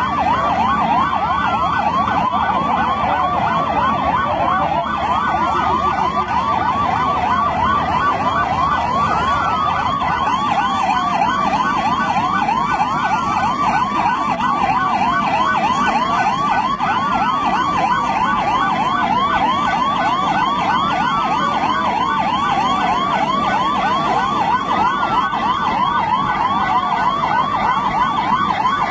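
Several emergency-vehicle sirens sounding at once: fast yelping wails overlapping one another, with a slower falling sweep repeating every two seconds or so.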